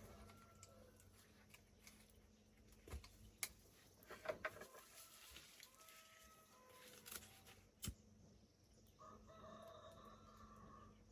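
A rooster crowing faintly in one long call near the end, after a few scattered clicks and knocks.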